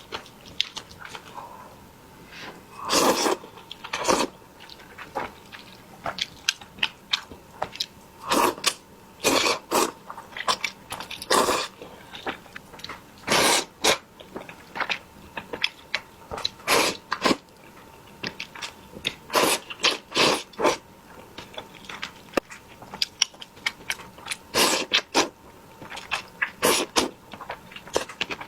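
A person eating: irregular crunching bites and chewing sounds.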